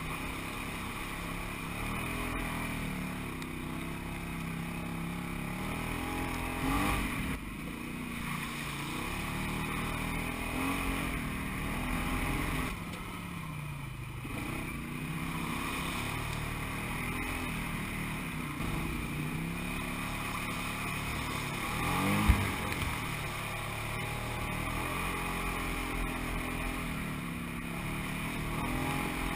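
Side-by-side UTV engine running under load on an off-road trail, its pitch rising and falling again and again as the throttle is worked over the terrain. A single sharp knock about three-quarters of the way through is the loudest sound.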